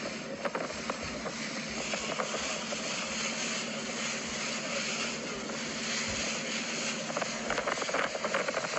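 Motorboat engine running steadily as a low hum under a rush of noise, with scattered short knocks that come more often near the end.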